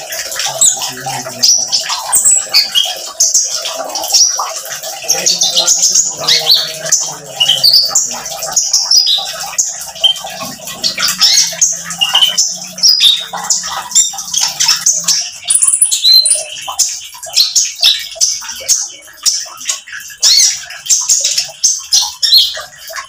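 Caged male Van Hasselt's sunbird (kolibri ninja) singing in rapid, continuous runs of high, sharp chirps and twitters, the loud 'nembak' song. A steady trickle of running water sits underneath.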